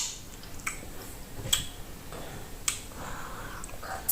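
Mouth sounds of eating fufu with okra soup: several sharp wet smacks and clicks, roughly one a second, with soft chewing between them.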